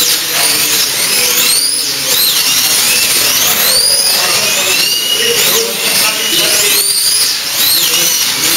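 Several electric slot car motors whining at high pitch, each whine rising as a car accelerates and falling away as it brakes, the overlapping rises and falls repeating every second or two.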